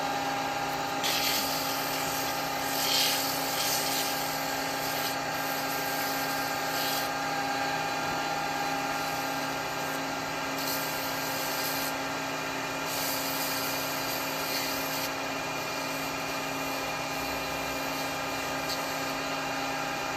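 Wood lathe running at a steady hum, with several short spells of hiss as a turning tool takes light passes across the spinning wooden bowl to smooth off a small knot.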